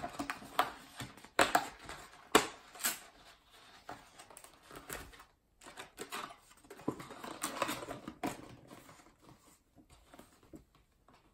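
A cardboard trading-card box being handled and opened by hand: a few sharp taps and knocks of cardboard in the first three seconds, then scraping and rustling as the lid is folded up and the card packs inside are moved.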